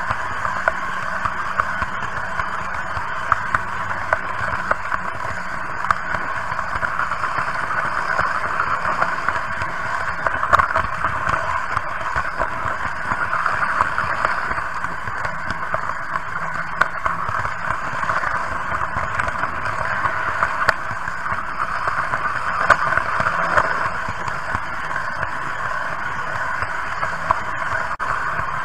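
Märklin H0 model train running along its track, heard from a camera riding on the train: a steady whir of wheels and motor with frequent small clicks.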